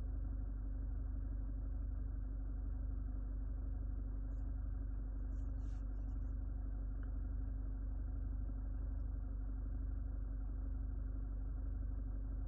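SsangYong Rexton's diesel engine idling steadily, heard from inside the closed cabin as a low, even hum with a faint steady drone; the underbody is freshly ceramic-undercoated, and the cabin reads about 47 dB on a sound meter.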